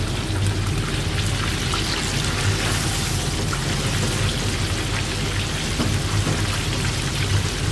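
Hot oil bubbling and crackling steadily in an electric deep fryer as a cornstarch-coated crucian carp deep-fries in the wire basket, with a steady low hum underneath.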